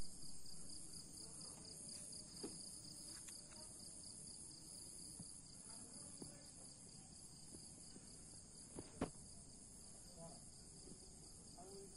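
Crickets trilling steadily and faintly, a continuous high-pitched chirring, with a couple of soft knocks, one about two seconds in and one near the end.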